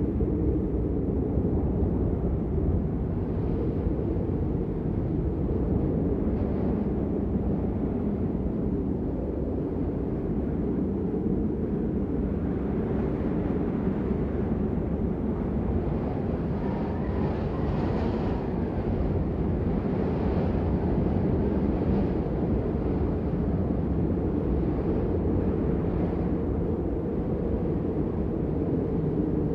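Steady low rumbling background noise, with a faint higher hiss that swells a little around the middle.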